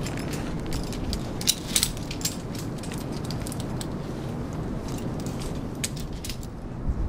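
Light metallic clinking and clicking of climbing hardware such as carabiners over a steady low rumble, in two short clusters, one about a second and a half in and another near the end.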